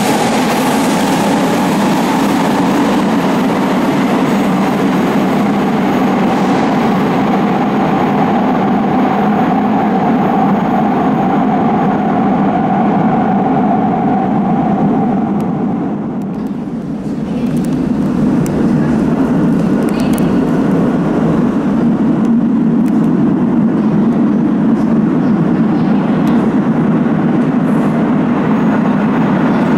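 Athens Metro train leaving the station into the tunnel: a steady rumble with a high motor whine that fades out a little past halfway. Then a low rumble builds again, with scattered clicks, from another train approaching along the platform.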